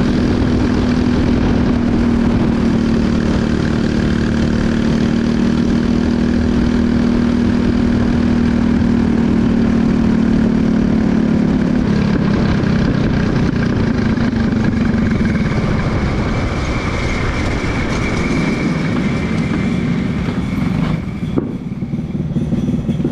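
Briggs & Stratton LO206 single-cylinder four-stroke kart engine running steadily under the onboard camera, with wind rushing on the microphone as the kart moves. About halfway through the engine note drops lower as the kart slows, and near the end the sound dips with a sharp click as it rolls into the pits.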